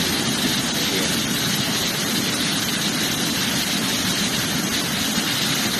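Steady, loud roar of torrential rain and floodwater rushing down a flooded street.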